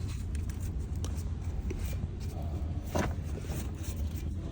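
Scattered light clicks and knocks of metal engine parts being handled, with one louder knock about three seconds in, over a steady low hum. This is the Honda D16Y8's bottom end being checked by hand for connecting-rod bearing play, the cause of its rod knock.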